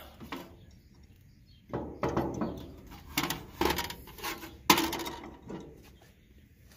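A metal fork scraping and knocking against a cast iron waffle iron, prying a cooked waffle loose. It comes as a string of short, separate scrapes and clinks, the loudest a little before five seconds in.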